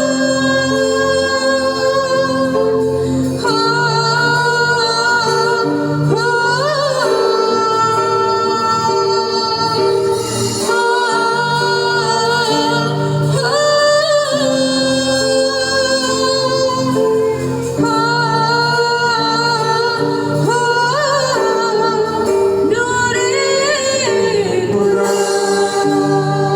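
Christian worship music: a voice sings long, held notes that slide between pitches, each phrase lasting a few seconds, over steady sustained chords.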